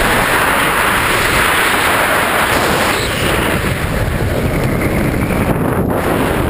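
Loud, steady wind rushing over a GoPro's microphone during a tandem parachute descent low over the ground.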